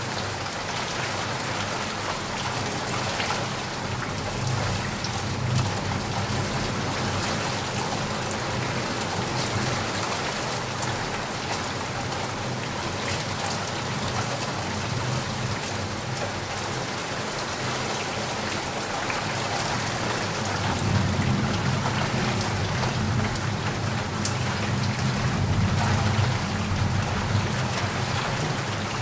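Steady rain pattering, with low thunder rumbling underneath that grows stronger in the second half.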